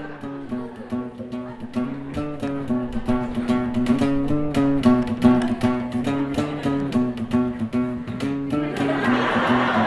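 Strummed guitar music with a steady rhythm.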